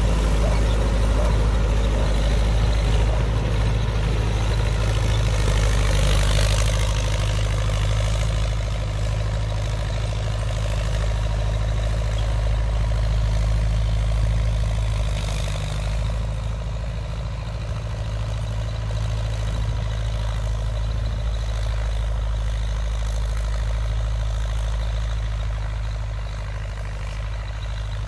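Diesel engine of an old Belarus MTZ tractor running steadily under load as it drives a rotary tiller through the soil. It grows a little fainter in the second half as the tractor moves away.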